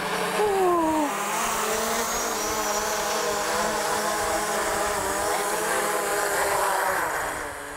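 DJI Mavic Pro quadcopter flying low, its four propellers giving a steady whine of several close tones on test flight after a crash. The whine fades away near the end.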